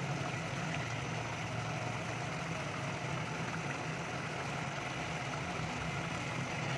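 Chicken karahi gravy simmering in an aluminium pot on a gas burner: an even hiss over a steady low hum.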